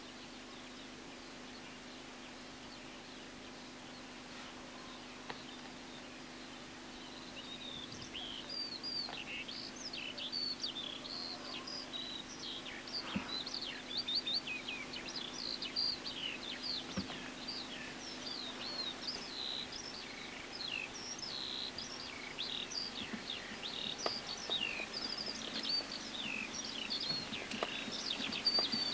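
A songbird singing a long, fast, chattering song of short high chirps and trills, starting about seven seconds in, over a steady low hum.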